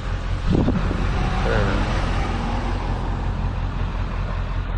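Steady motor-vehicle running noise, with a louder swell from about half a second to two seconds in.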